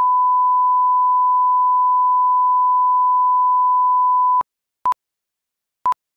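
Steady pure test tone of a film's head leader, cutting off about four seconds in, then countdown-leader beeps at the same pitch: one short beep a second, twice.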